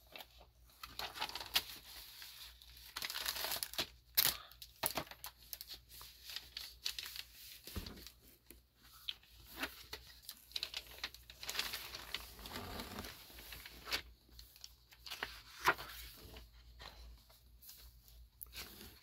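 Rustling and crinkling of paper as a photobook is handled, its cover opened and its glossy pages turned, with scattered small clicks and rustles.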